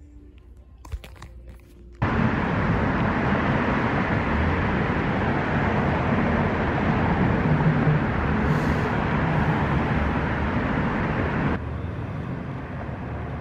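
Wind rush and engine noise of a motorcycle ride, loud and steady, starting abruptly about two seconds in after a few clicks and easing a little near the end.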